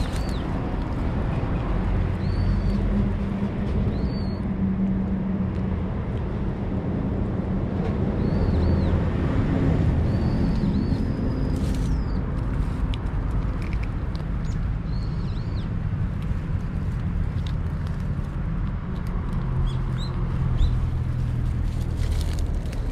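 Steady low rumble of city traffic, with a few short bird chirps here and there.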